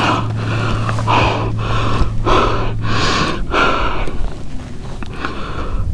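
A man breathing hard in quick, heavy, even breaths, winded after fighting a big red drum.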